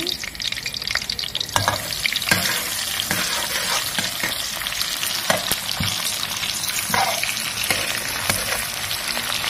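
Sliced red chillies and lemongrass sizzling in hot oil in a metal wok. The frying gets louder about a second and a half in as the chillies go in, and a metal spatula knocks and scrapes against the pan while stirring.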